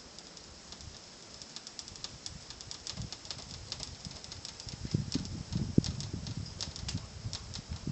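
Blizzard wind buffeting the phone's microphone, a low uneven rumble that grows stronger about five seconds in, over a fast, irregular scatter of faint high ticks.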